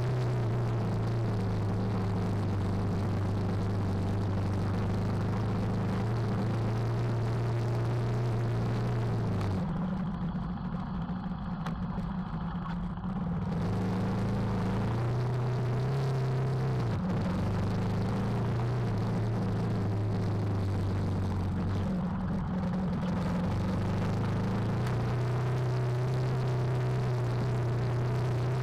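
KTM 390 Adventure's single-cylinder engine running under steady throttle on a dirt track, with a constant rush of noise over it. The engine note drops and quietens for a few seconds about a third of the way in, dips again briefly later, then picks back up.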